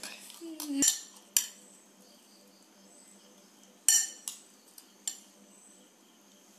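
Metal spoons clinking against plates and serving dishes while rice is served and eaten, as a few separate sharp clinks. The loudest come about a second in and about four seconds in.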